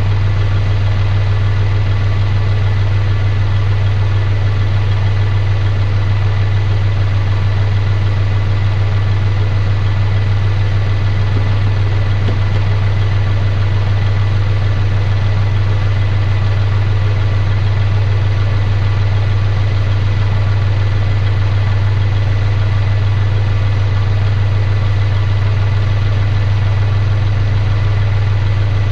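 Kubota compact tractor's diesel engine idling steadily, a constant low drone heard close up from the operator's seat.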